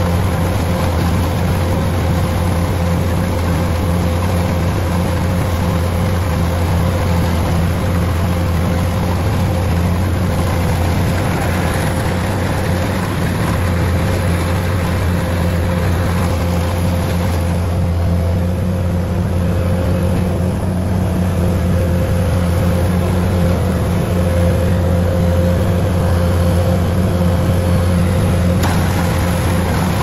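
DC105 rice combine harvester's diesel engine running steadily at a constant speed, with a steady drone under the machinery's noise.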